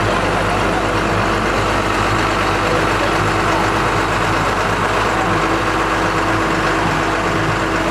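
Steady running of a vehicle engine: an even rumble with a faint steady hum through it.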